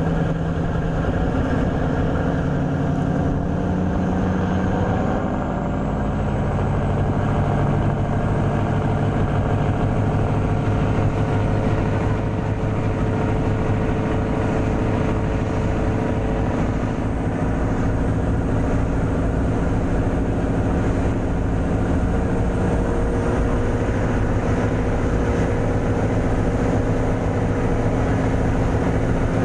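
Ferry KM. Barcelona IIIA's engines running steadily under way, heard from the open deck over the rush of water along the hull. The engine note rises a little about five seconds in, then holds steady.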